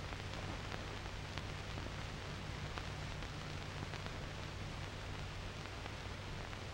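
Steady hiss and low hum of an old 16mm film soundtrack, with a few faint clicks scattered through it.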